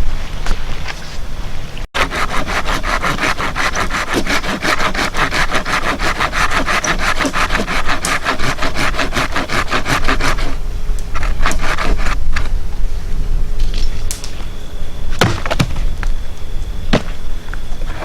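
Folding hand saw (Silky Gomboy) cutting through a dry hardwood branch in quick, even back-and-forth strokes. The sawing stops about ten seconds in and is followed by a few scattered sharp cracks.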